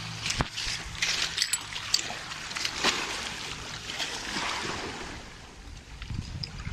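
Shallow water splashing and lapping at the shore as hands dip into it, with a run of sharp splashes and crackles in the first three seconds that soften toward the end.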